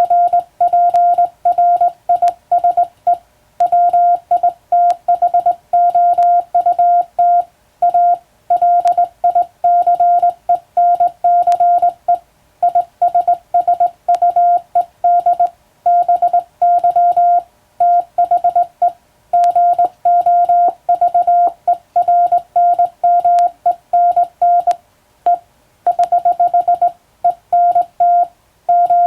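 Morse code (CW) sent by hand on a telegraph key: a single steady beep switched on and off in quick dots and dashes, in a continuous stream with short pauses between groups, with faint clicks from the key. The text being sent is English-letter telegram practice.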